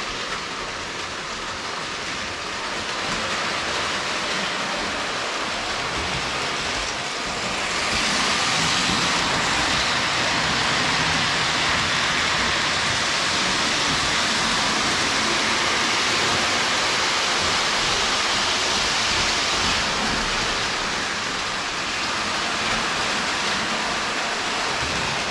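Lionel O-gauge toy train running on three-rail track, a steady rumble and clatter that grows louder about a third of the way in.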